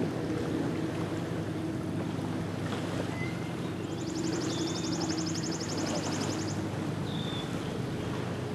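A distant motorboat engine drones steadily across the lake. About four seconds in, a bird gives a rapid high trill lasting a few seconds, with a few short chirps around it.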